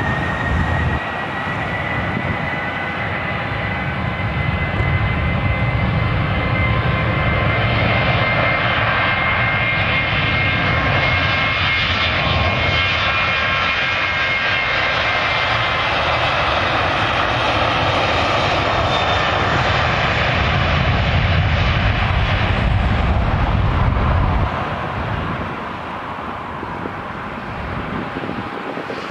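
Boeing 737-800 jet engines at takeoff thrust during the takeoff roll: a high fan whine rising in pitch at first, then steady over a loud broad engine noise, which drops in level near the end as the jet moves away.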